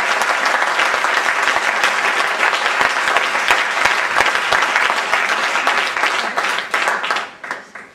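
Audience applauding, dying away into scattered claps near the end.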